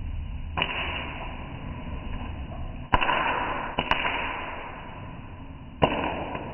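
Popcorn kernels popping in a stainless steel pan over a gas flame: four sharp pops, irregularly spaced, each trailing off into a short fading hiss.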